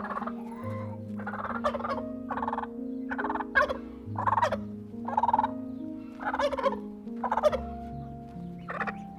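A fowl calling in short, rattling bursts about once a second, over background music with held notes.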